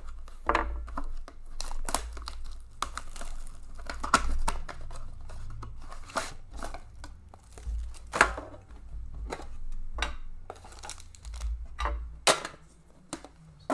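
Plastic shrink-wrap crinkling and tearing as a sealed trading-card box is unwrapped and opened, in irregular crackles with a few sharper rips.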